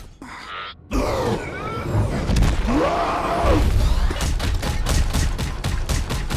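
Film fight sound effects of the Hulkbuster armor pummelling the Hulk. A brief hush is followed about a second in by a heavy crash, then a drawn-out cry that rises and falls in pitch. From about four seconds in comes a rapid run of heavy punches, several a second.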